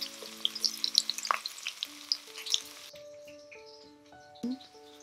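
Onion slices sizzling and crackling in hot olive oil in a stainless steel pot. The crackle cuts off abruptly about three seconds in.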